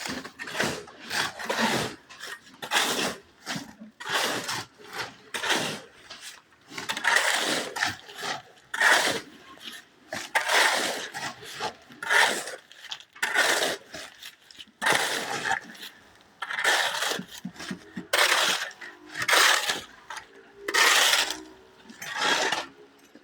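Shovels scraping and scooping through concrete mix in a steady run of strokes, about one a second.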